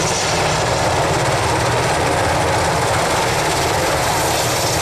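Sikorsky UH-60 Black Hawk helicopter running steadily, its main rotor and twin turboshaft engines giving a loud, even sound with a low, rapid beat.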